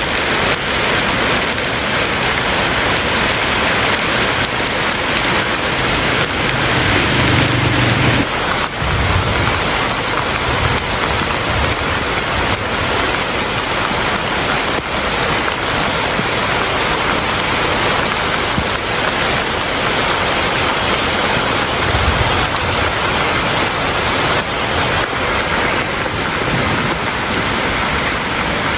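Steady heavy rain falling on surfaces, an even hiss, with a few brief low rumbles underneath.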